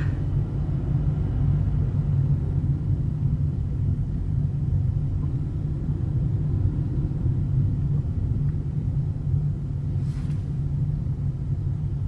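Steady low rumble of a car's engine and tyres heard from inside the cabin while driving slowly.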